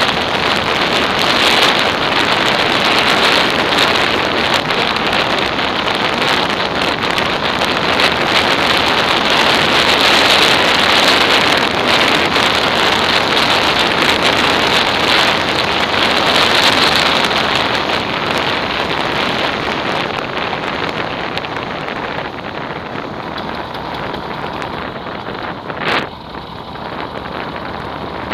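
Wind rushing over the microphone of a camera on a moving motorcycle, a loud, steady noise that eases in the second half as the bike slows. A single short click near the end.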